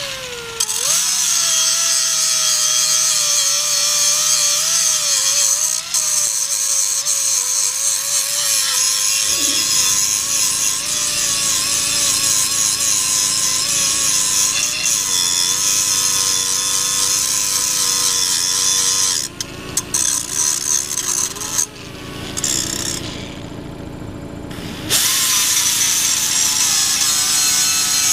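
Electric grinder sharpening a steel lawn mower blade: the motor spins up at the start, then a steady whine with a loud hiss as the wheel grinds the dull, nicked cutting edge. The sound drops for a few seconds about two-thirds of the way through as the wheel comes off the metal, then the grinding resumes at full loudness.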